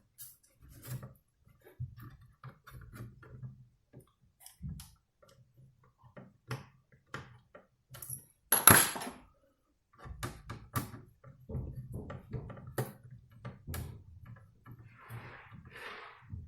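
Small clicks and taps of a screwdriver and hands working in a laptop's plastic chassis while a motherboard screw is driven in, with one sharper knock about halfway through.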